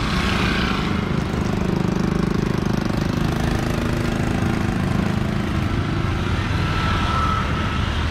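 A small engine running steadily close by.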